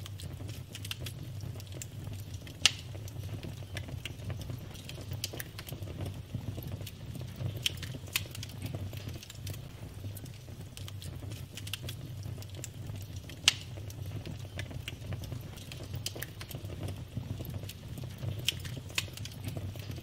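Burning wood logs crackling steadily over a low rumble, with irregular small pops and two sharper, louder pops, one about two and a half seconds in and one about two-thirds of the way through.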